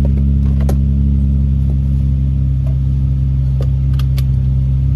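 Nissan Z roadster's V6 engine idling steadily while the car stands still, heard from the driver's seat with the roof down. A few light clicks come near the start and about four seconds in.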